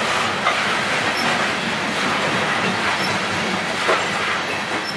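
Steel-wheeled freight hopper cars rolling past at speed: a steady rumble and clatter of wheels on rail, with a few sharp clicks as wheelsets go by.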